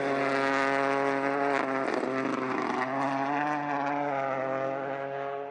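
Rally car engine holding a steady, nearly constant note, fading slowly toward the end.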